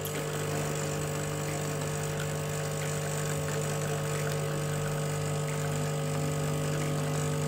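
Milesto Irina double-boiler espresso machine's pump humming steadily while it pulls an espresso shot.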